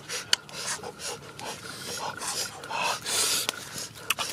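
A person eating noisily close to the microphone: irregular chewing and crunching, with a few sharp clicks.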